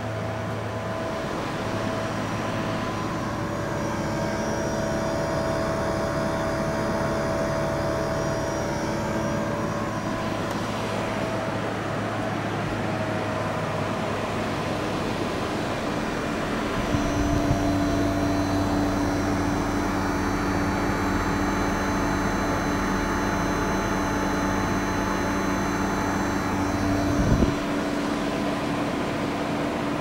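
Daikin E-series inverter air conditioner outdoor units running: a steady hum with several held tones from the compressors over the rush of the fans' airflow. About halfway through, a new low tone comes up and the hum grows fuller, and two brief low thumps come a little later.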